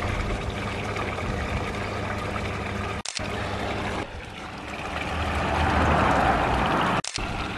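Garden water feature: a sheet of water falling from a steel spillway into a trough pool, a steady splashing rush that grows louder in the last few seconds. It breaks off briefly about three seconds in and again near the end.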